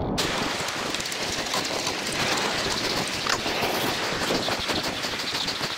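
Gritty crunching of footsteps on sandy stone steps: a dense, steady crackling hiss with irregular small crunches.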